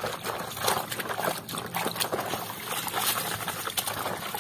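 Thick muddy water sloshing and splashing in a metal basin as a hand swishes and scrubs a plastic toy car through it, in irregular splashes.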